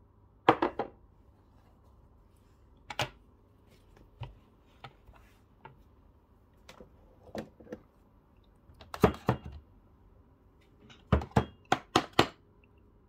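Espresso portafilter knocked repeatedly against a knock box to empty the spent coffee puck: a series of sharp knocks, a group about nine seconds in and a faster run of five near the end. Before that come scattered clicks and clunks of a glass and the portafilter being handled.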